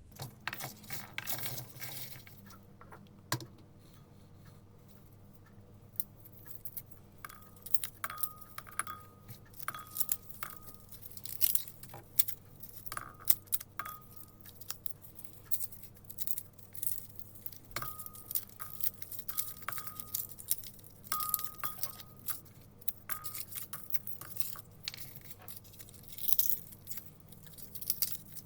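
Garlic being handled close up: papery skins crackling and tearing, with scattered clicks and, from about a quarter of the way in, clusters of short squeaky notes as cloves rub and are pulled apart.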